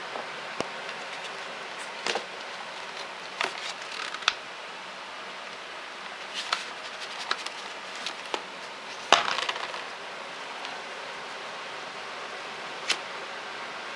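A cardboard phone box, its insert tray and paper booklets being handled: scattered taps, clicks and paper rustles over a steady hiss. The loudest is a short cluster of knocks and rustling about nine seconds in.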